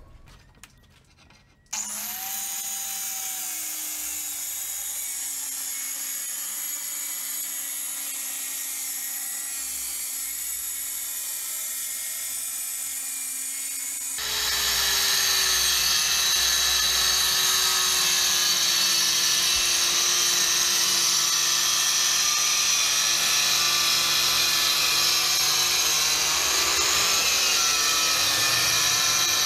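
DeWalt DWC860W 4-3/8-inch handheld wet/dry tile saw starting up about two seconds in and running free with a steady whine. About 14 s in it turns louder and grittier as the diamond blade cuts wet through a porcelain plank, and it keeps ripping to the end.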